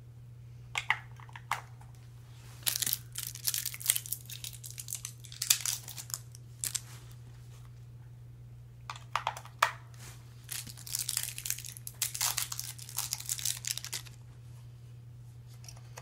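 Plastic crinkling and rustling with sharp clicks, in irregular bursts, as AAA batteries are handled and fitted into a TI-84 Plus calculator's battery compartment. A steady low hum lies under it.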